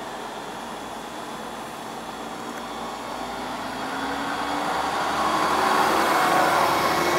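Stadler GTW diesel light rail car pulling out of a station. The diesel engines run steadily, then grow louder from about halfway in as the train gathers speed.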